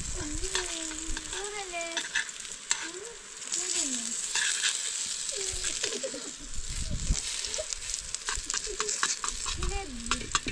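Steady hiss full of small crackles and clicks, with faint wavering pitched sounds drifting in and out underneath.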